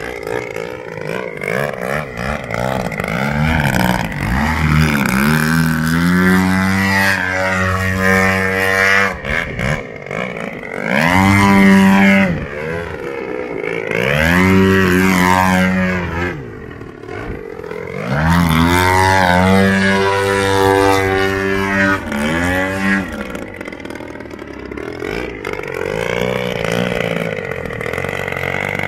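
GP178 gas engine of a giant-scale RC aerobatic plane running in flight, driving a 31x12 carbon fiber propeller. Its pitch and loudness rise and fall repeatedly through the manoeuvres, with several loud swells.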